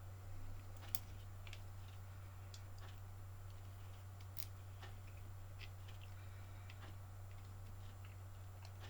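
Faint, scattered small clicks and ticks of wires and small plastic parts being handled and tucked into an RC car chassis, over a steady low hum.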